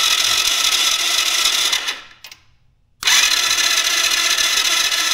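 Tao Tao ATV's electric starter cranking the engine in two bursts of about two seconds, with a short pause between, a steady whine that never catches: the engine turns over without firing because there is no spark.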